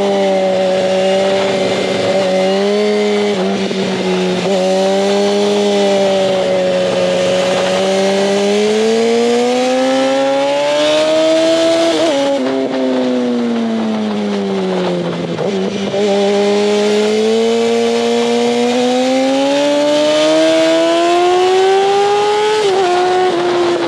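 2004 Yamaha R1's inline-four engine pulling on the road, its revs climbing slowly, falling away about halfway through, then climbing again and dropping sharply near the end. Wind rush runs underneath.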